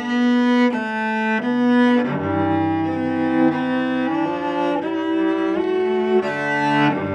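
Solo cello played with the bow: slow sustained notes changing every half second to a second, with a low note held beneath the melody from about two seconds in.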